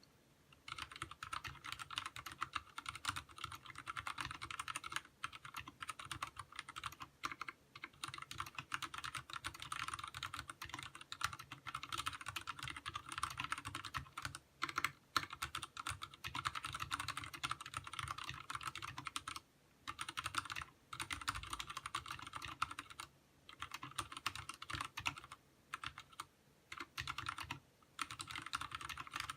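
Fast, continuous typing on a Vortex Race 3 mechanical keyboard with linear Cherry MX Speed Silver switches and DSA-profile keycaps: dense key clacks with a few short breaks of about a second.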